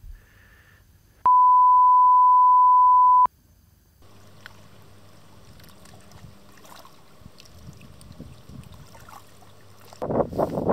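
A loud steady electronic beep at one pitch, about two seconds long, starting about a second in. After it comes faint water noise, and near the end loud wind buffeting the microphone.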